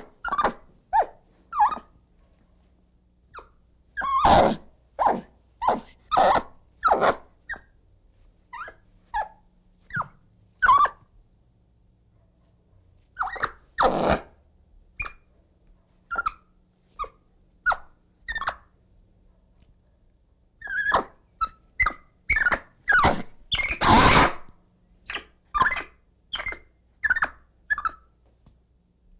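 Agitated monkey calling in clusters of short, quick cries with silent gaps between them, and louder, harsher screeches about four, fourteen and twenty-four seconds in.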